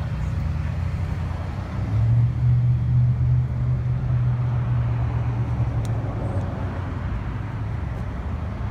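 A motor vehicle engine running, a low hum that grows louder about two seconds in and eases off after about five seconds.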